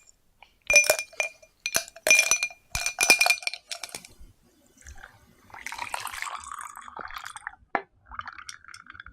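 Glass clinking: the same glass object is struck about six times in the first four seconds, and each strike rings briefly at the same pitch. Softer irregular handling noise follows, then a single sharp click near the end.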